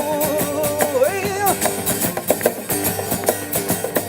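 Rock and blues played by a guitar and drum kit duo: guitar chords over steady drum and cymbal hits, with a long wavering note held over the first second and a half.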